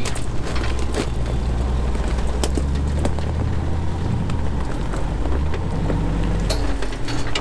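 Engine of a built off-road pickup running at low revs as it crawls up a rocky trail, the pitch shifting slightly as the throttle changes. Scattered sharp clicks and knocks come from rocks and gravel under the tyres.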